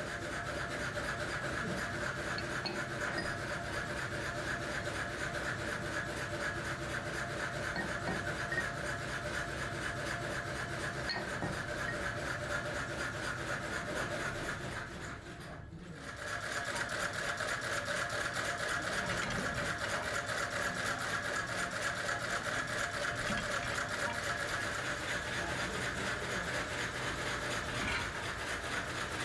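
A small machine running with a steady, rapid mechanical rattle. It breaks off briefly about halfway through, then carries on.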